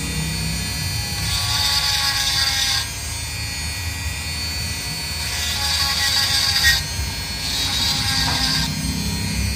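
Handheld electric rotary tool running with a steady whine, its small bit grinding the damaged splines of a crankshaft. The grinding comes in three rasping passes of a second or two each as the bit bites the steel.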